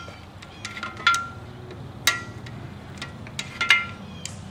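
Steel cam bearing removal bar clinking against the cam bores of a Chevy 350 cast-iron block as it is slid through. There are a few sharp metal clinks, each with a brief ring.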